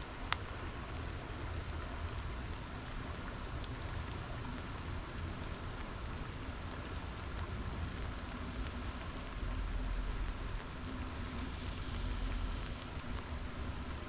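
Light rain falling on water and leaves, with a river running steadily beneath it and a few sharper drop ticks.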